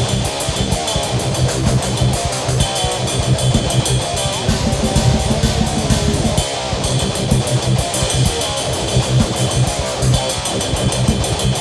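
Loud rock-style music with guitar and a fast, steady drum beat.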